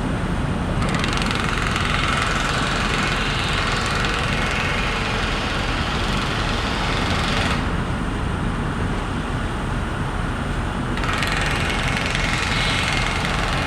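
Engine running steadily with a low rumble, with a hissing noise over it for several seconds from about a second in, and again for the last few seconds.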